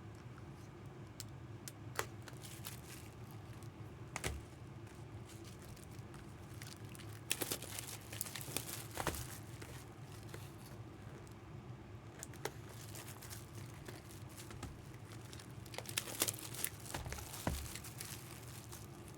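Plastic packaging crinkling and rustling as it is handled, with scattered light clicks and taps. It grows busier about seven seconds in and again near the end.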